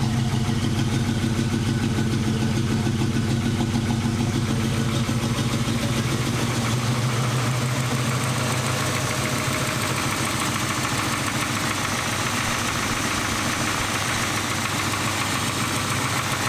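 1987 Chevrolet Caprice V8 engine idling steadily after a fresh start. It was started to show a knock that the owners are not sure of: it could be a rod knock, or ticking from an exhaust leak at the headers.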